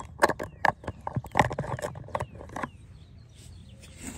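Handling noise from the camera being moved and set down: a quick, irregular run of sharp clicks and knocks over the first two and a half seconds, then it goes quiet.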